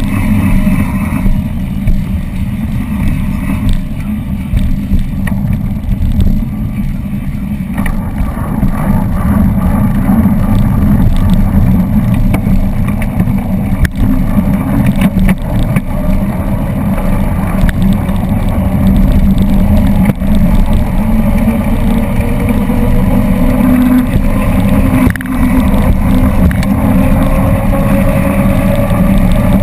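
Wind rushing over the microphone, with tyre and road noise, as a trike speeds downhill, loud and steady throughout. Over the second half a faint tone rises slowly in pitch.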